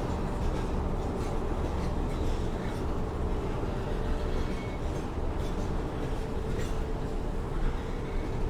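Train running, a steady rumble with a faint steady whine and scattered light clicks.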